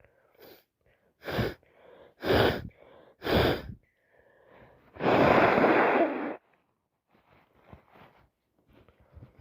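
A woman sneezing three times in quick succession, about a second apart, with short sharp inhales between, then one longer, louder blast lasting over a second, followed by faint sniffs and breaths. It is an allergic sneezing fit.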